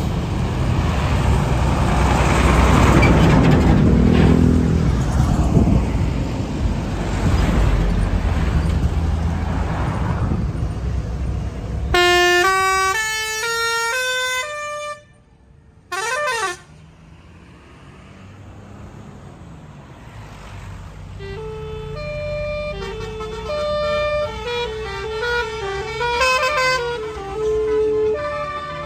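A tour bus passing with its engine running loud, then its telolet basuri musical horn playing a tune of stepped notes, with a short wavering glide after it. After a brief lull a second melody of horn notes starts.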